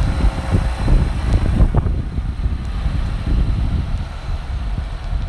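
Wind buffeting the microphone: an uneven low rumble with no steady tone, easing slightly in its upper range about two seconds in.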